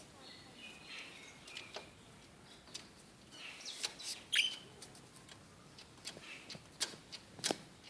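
Pet lovebirds chirping in short, scattered calls, with a couple of sharp clicks near the end.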